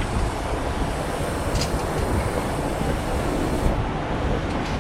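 Steady mechanical running noise from an inverter split air conditioner's outdoor unit, its fan and compressor running while R410A refrigerant is being topped up.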